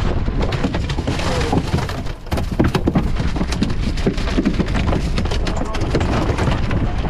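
A freshly landed mahi-mahi thrashing in a boat's fiberglass fish box: quick, irregular knocks and slaps, loudest a little after two seconds in, over wind rumbling on the microphone.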